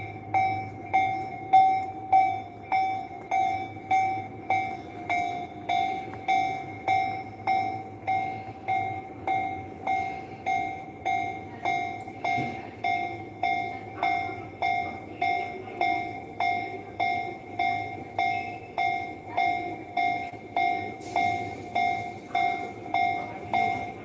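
Japanese railway level crossing's electronic warning bell ringing in an even repeating ding, about one and a half strokes a second, over a low steady rumble.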